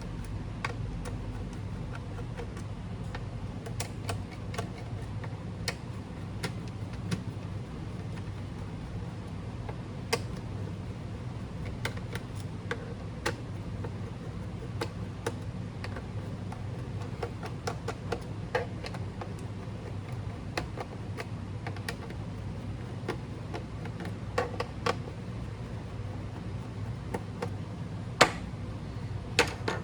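Hands working on a laptop's plastic case: scattered small clicks and taps at irregular intervals over a steady low hum, with one louder click near the end.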